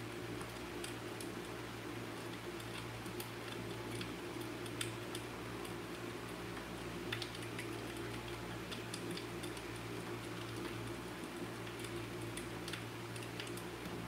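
Fireplace crackling: scattered, irregular small pops and clicks over a steady low hiss and hum.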